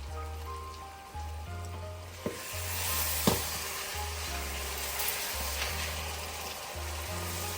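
Food sizzling as it fries in hot oil. The sizzle swells up a couple of seconds in, with a couple of sharp knocks. Background music plays throughout.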